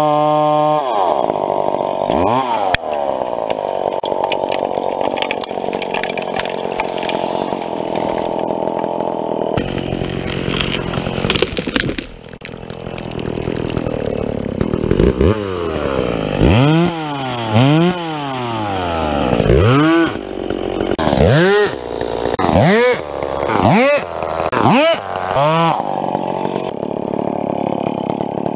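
Gas chainsaw cutting through a tree trunk: the engine sags from its high free-running note as the bar bites, runs steadily in the cut, then near the end is revved up and let back down over and over, about once a second.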